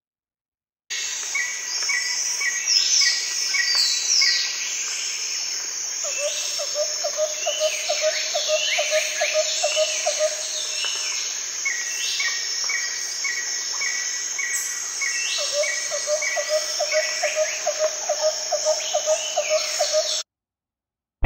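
Forest ambience of many birds calling, with runs of short repeated chirps and quick falling whistles over a steady hiss. Twice, a low, rapid pulsing trill runs for a few seconds. It starts about a second in and cuts off about a second before the end.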